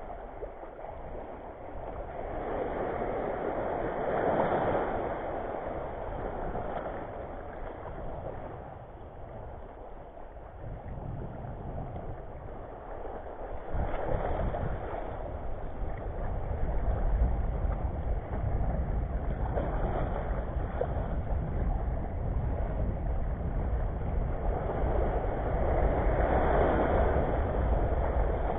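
Sea waves washing in over a shallow rocky reef at the water's edge, surging three times, roughly ten seconds apart. A low wind rumble on the microphone comes in from about halfway through.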